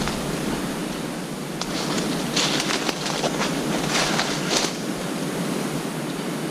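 Footsteps through dry leaf litter and brush: rustling and crackling of leaves and twigs, in a cluster of crunches through the middle, over a steady hiss.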